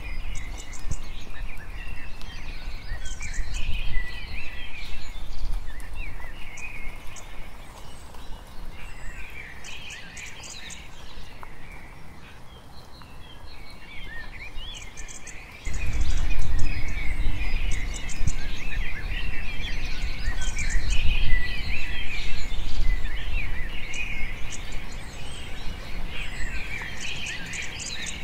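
Many small birds chirping and chattering throughout. A low rumble underneath fades for several seconds and comes back suddenly a little past halfway.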